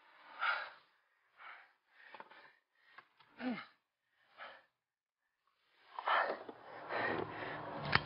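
A man breathing in short, faint gasps and sighs, with a falling groan-like breath about three and a half seconds in; the breathing grows louder and denser from about six seconds.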